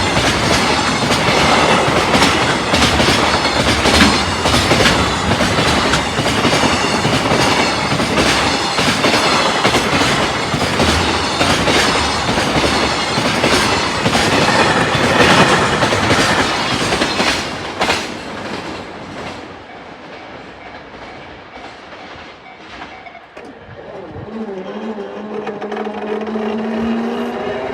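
A freight train passing close by, its wagon wheels clattering rhythmically over the rail joints, then fading away after about eighteen seconds. A low steady tone, rising slightly in pitch, comes in near the end.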